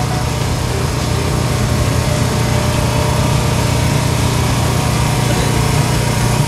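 A small engine running steadily, an unbroken drone that holds the same level throughout.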